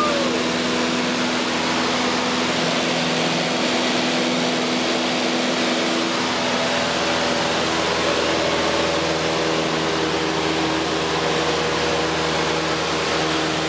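Cessna 152's four-cylinder Lycoming O-235 engine and propeller droning steadily, heard from inside the cabin with wind noise over the airframe, during the climb after takeoff.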